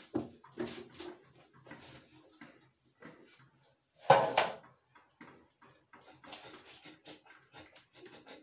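Light knocks and clicks of a metal cake pan and a cardboard cake board being handled as a baked cake layer is turned out of its pan, with a louder clatter about four seconds in as the pan is lifted off the cake.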